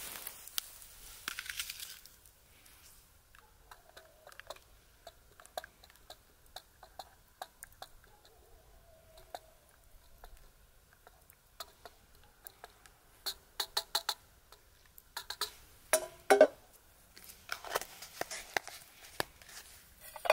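Light clicks and knocks of a wooden spoon stirring in a steel camp mug, with a few louder knocks in the second half.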